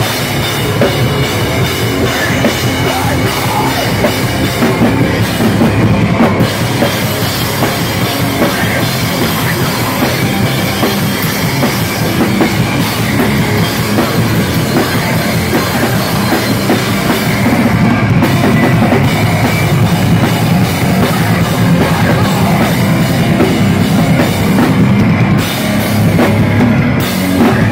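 Hardcore punk band playing loud and live: distorted electric guitars and bass through a Marshall amplifier stack, with pounding drums and crashing cymbals.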